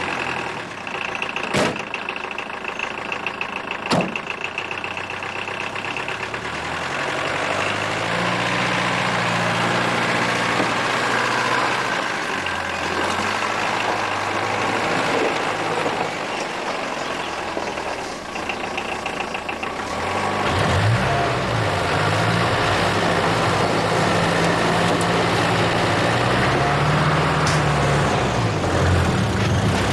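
A car door slams twice. Then an old saloon car's engine runs as the car pulls away, its pitch stepping up and down, and it grows louder about two-thirds of the way through.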